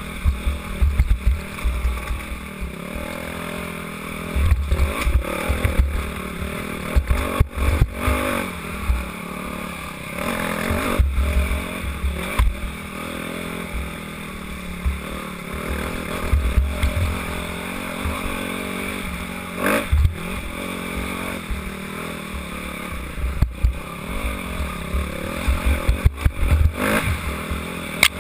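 Dirt bike engine revving up and down as the bike is ridden over rough trail, with knocks and clatter from the bike over bumps and low rumbling on the bike-mounted camera's microphone.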